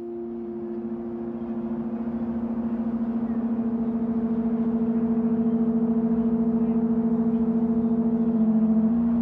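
Background music: a droning chord of a few held low tones that slowly swells in loudness, with a fast shimmering pulse. One of the notes shifts near the end.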